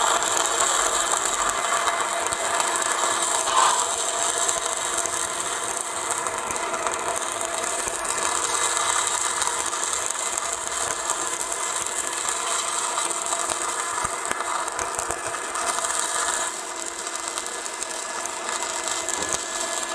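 Stick (SMAW) welding arc burning on a 6013 rutile electrode, a steady crackling hiss.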